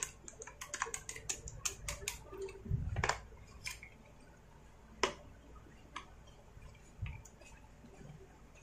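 Small plastic and metal parts clicking and tapping as the carburettor, throttle linkage and hose are fitted on a Stihl MS250 chainsaw: a quick run of clicks in the first two seconds, a dull knock about three seconds in, and a sharp click about five seconds in.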